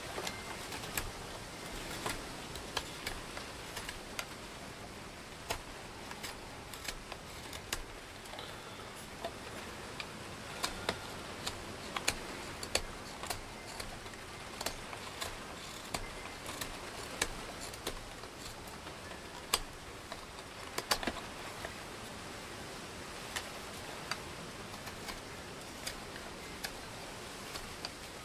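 Schrade Frontier SCHF42D knife carving a wooden spatula blank by hand: irregular sharp clicks and snicks as the blade bites into and shaves the wood, about one or two a second, over a steady hiss.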